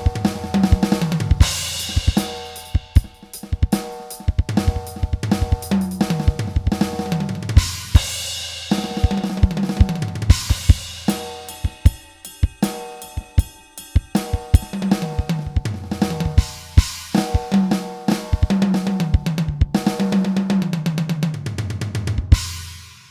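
Acoustic drum kit samples triggered on a Roland SPD-SX sampling pad played with sticks: a kick, snare and hi-hat groove with cymbal crashes, broken up by several tom fills that step down in pitch. The playing stops just before the end.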